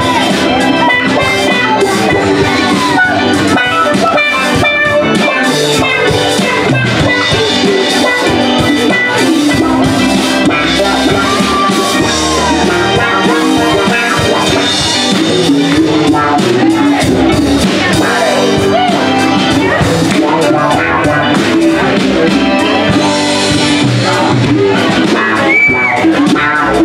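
Live band playing an instrumental passage of a reggae song: saxophone over electric and acoustic guitars, keyboard and drum kit.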